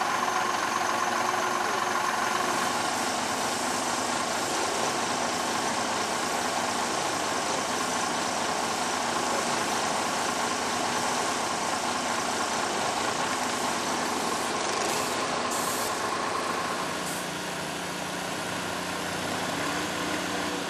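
Truck-mounted crane's engine running steadily, becoming slightly quieter about three-quarters of the way through.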